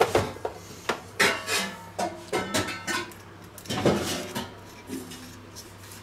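Plastic hand-press food dicer being worked: a series of sharp plastic clacks and knocks at irregular intervals, with a metal fork clicking against its plastic grid near the end.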